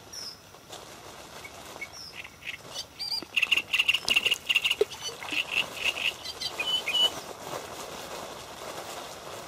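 A small bird chirping: a quick run of short, high chirps starting about three seconds in and lasting a few seconds, over a faint outdoor hiss.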